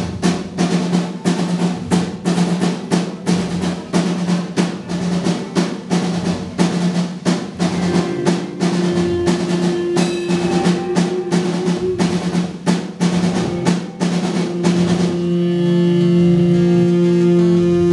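Live rock band playing an intro: the drum kit hits quick, even strokes over a held low note, and about fifteen seconds in the drums stop, leaving a sustained chord ringing.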